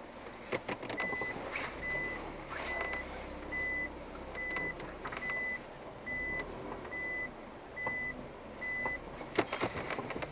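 A car's warning beeper sounding ten evenly spaced short high beeps, a little more than one a second, over the low hum of the SUV's idling engine. Scattered sharp knocks from the car on rough ground come through, the loudest near the end.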